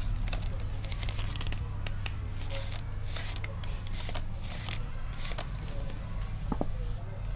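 Card pull-tab of a children's pull-the-tab book slid back and forth, a run of short papery swishes, then the stiff page turned near the end.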